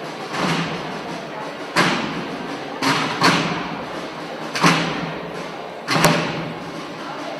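A drum beaten in a slow, uneven beat, one stroke about every second or so and sometimes two close together. Each stroke leaves a short low ring and echoes in the large stone church.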